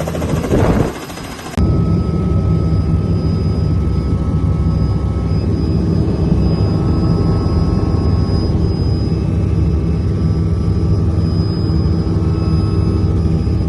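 Helicopter running close by: a steady drone with a thin high whine over it. The sound dips and then jumps abruptly about a second and a half in.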